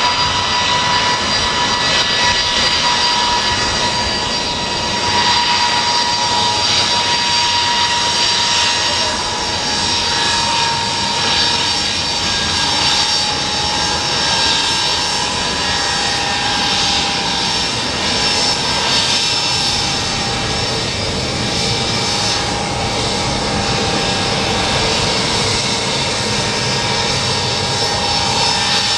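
Tupolev Tu-154 airliner's rear-mounted jet engines running as it rolls out and slows on the runway after touchdown: a steady whine over a continuous rush of jet noise.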